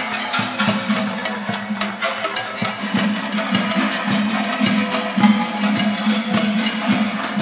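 Several people drumming on metal pots, pans and kettles with wooden spoons and sticks: a fast, dense clatter of strikes in a steady groove over a steady low tone.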